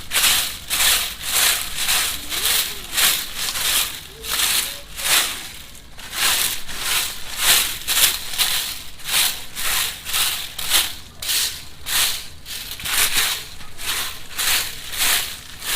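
Fallen leaves being raked together in quick, regular strokes, each stroke a rustling scrape, about two a second, with a short pause about six seconds in.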